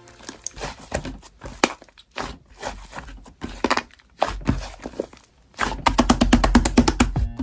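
Hands playing with slime: scattered squishes and pokes, then a quick run of crackling, popping clicks over the last couple of seconds.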